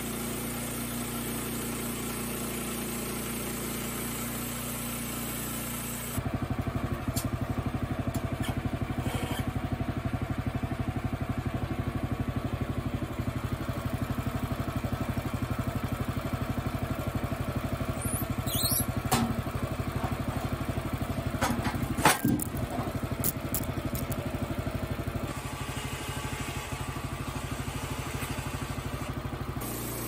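Small gas engine of a Woodland Mills HM122 portable bandsaw mill running steadily. About six seconds in it jumps louder and rougher, and it drops back a little near the end. A few sharp knocks come past the middle, the loudest about two-thirds of the way through.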